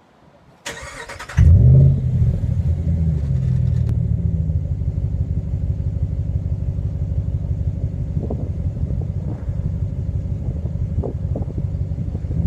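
2014 Ram pickup's engine with a Magnaflow muffler being started: a brief crank about a second in, then it catches with a loud flare. It settles into a steady, deep idle.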